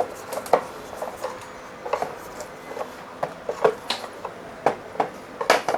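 Irregular clicks and knocks from a rechargeable charger fan's casing being handled and taken apart, about a dozen in a row.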